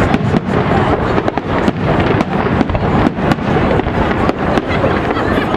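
Aerial fireworks shells bursting in quick succession: many sharp bangs close together, about three a second, over a continuous rumble.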